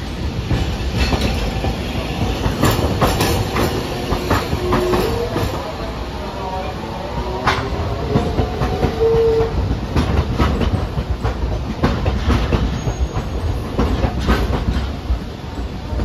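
A Hiroden 3950-series "Green Liner" tram passes slowly close by, its motors and running gear rumbling and its wheels clacking on the rails. A few brief squeals come from the wheels around the middle.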